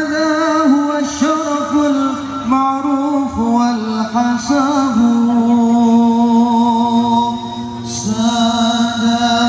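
Male voice singing an Arabic sholawat over a large outdoor sound system, in winding melismatic phrases with long held notes, one held steady for about three seconds near the middle.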